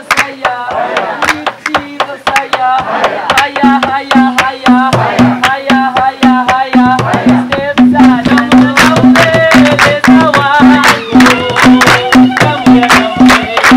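Background music: a song with a voice over busy hand percussion, joined about four seconds in by a low note pulsing about twice a second.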